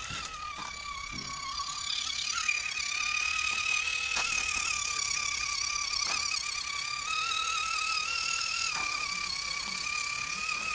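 Small electric motor and gearbox of a WPL radio-controlled truck whining steadily as it drives, wavering slightly in pitch, with a few faint clicks.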